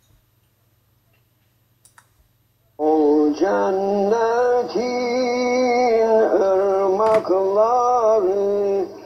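Near silence with a faint low hum, then about three seconds in a traditional Turkish ilahi (devotional song) begins: a voice singing long, held, gently bending notes over a low steady tone.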